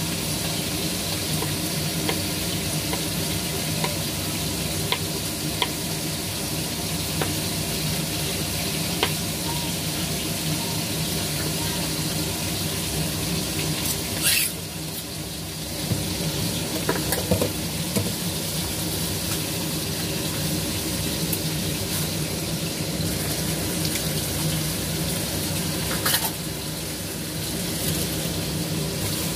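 Oil sizzling steadily in a frying pan over a steady low hum, with scattered light knife taps on a wooden cutting board; two sharper clicks stand out about halfway through and near the end.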